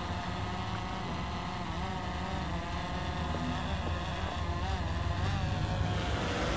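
Small camera drone's electric motors and propellers whirring, the pitch wavering up and down as it manoeuvres, over a steady low hum.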